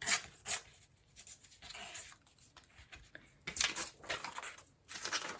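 Scrap paper being torn into strips, several short quick rips with paper rustling between them.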